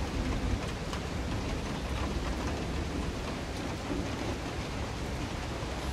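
Steady rain, heard from inside a school bus with a window open.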